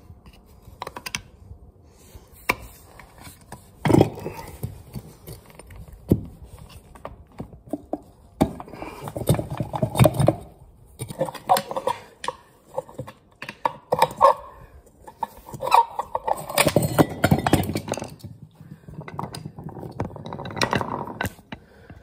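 Flathead screwdriver prying and scraping at the rusted joint between a steam boiler condensate pump's motor and its pump housing: irregular metal clicks, knocks and scrapes as the corroded seam is worked apart, with a sharper knock about four seconds in.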